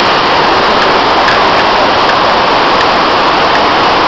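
Loud, steady rush of water from an indoor standing-wave surf machine pumping a sheet of water up its ride surface.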